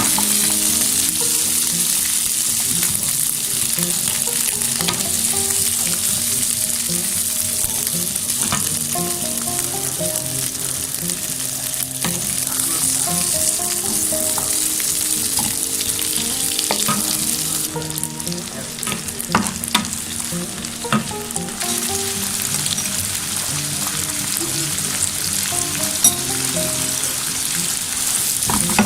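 Onion, capsicum and chicken sautéing in butter in a hot pan: a steady sizzle while the food is stirred, with a few sharp knocks on the pan about two-thirds of the way through and one more near the end.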